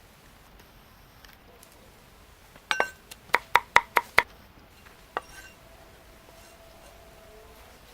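A quick run of about seven sharp taps on kitchenware, some five a second, each with a slight ring, and one more tap a second later.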